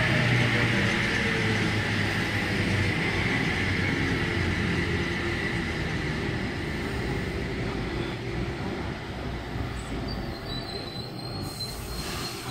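Waratah electric multiple-unit train running along the platform, its motor whine falling in pitch over the first few seconds under a steady high wheel squeal. The whole sound slowly fades as the train moves away.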